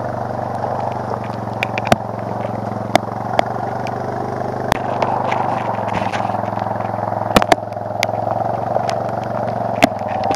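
Suzuki DR-Z400S single-cylinder four-stroke engine running at a steady speed, with sharp clicks now and then. Its throttle is stuck because the handguard was pushed into the handlebar.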